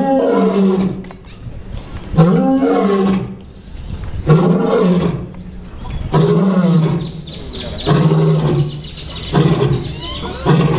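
Male lion roaring: a series of about seven deep calls, roughly one every two seconds, each shorter than the last and coming a little faster, the grunting tail of a roaring bout.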